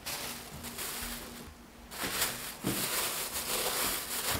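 Soft background music. From about halfway through, a plastic bag holding dough rustles in short bursts as it is handled on a wooden board.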